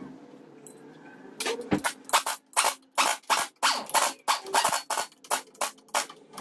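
Pneumatic impact wrench driving in the flywheel bolts on a car engine's crankshaft, fired in short rattling bursts of about three a second that start about a second and a half in.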